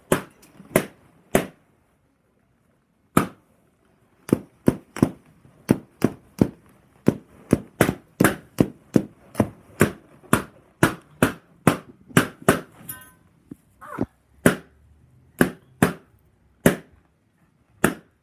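Latex party balloons being burst one after another: dozens of sharp pops, about two to three a second, with a pause of nearly two seconds after the first few.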